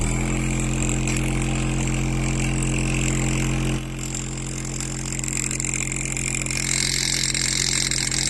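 A cheap engraving machine running: the handpiece buzzes with a steady hum while its graver cuts into an aluminium plate with a scratchy hiss. The hum drops a little just under four seconds in, and the scratching gets brighter in the second half.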